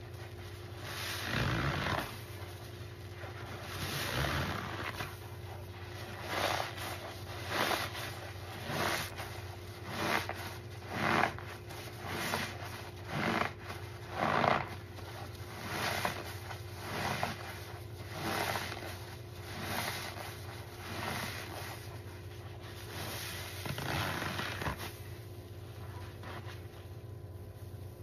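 Foam-soaked sponges squeezed by hand in a basin of soapy suds: a run of wet squelches about once a second, loudest midway, thinning out near the end.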